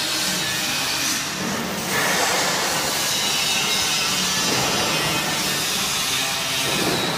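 Automatic PET preform box loader running: a steady mechanical scraping hiss over a low hum, getting slightly louder about two seconds in.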